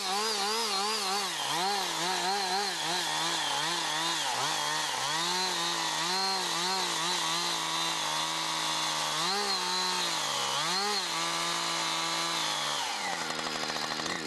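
Chainsaw running at high revs while cutting. Its pitch rises and falls again and again as it bites into the wood, holds steady for stretches, then drops away shortly before the end as the throttle is let off.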